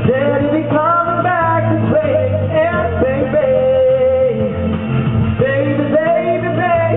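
A song being sung with instrumental accompaniment: two long held, wavering vocal notes with a short break between them about four and a half seconds in.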